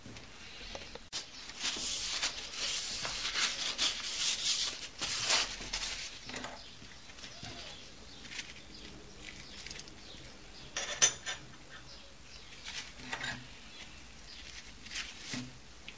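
Hands handling steel tools and parts on a mini lathe bed. There are a few seconds of rustling and scraping, then a few light metal clicks and taps as pieces are set down on the ways.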